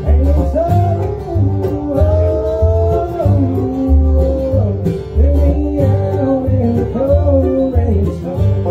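Live bluegrass band playing: an upright bass alternates low notes on the beat under banjo, guitar and mandolin, with a gliding melody line on top.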